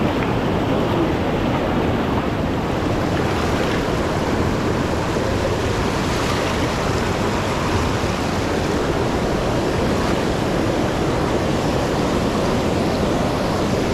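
River rapids rushing over boulders: a steady, loud rush of water.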